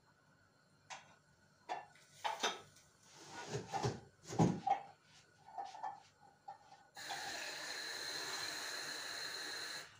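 A few knocks and clatters of kitchenware, then a kitchen sink tap runs steadily for about three seconds and is turned off just before the end.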